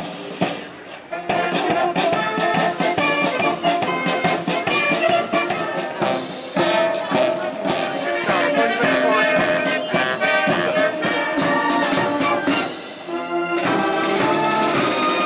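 Military brass band playing a march, with brass carrying the tune over a beat.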